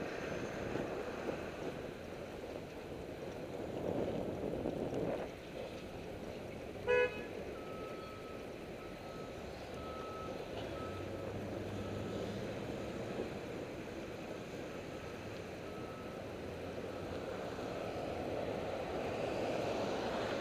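City street traffic running past, with one short car horn toot about seven seconds in, the loudest sound. Faint on-and-off beeping follows for several seconds.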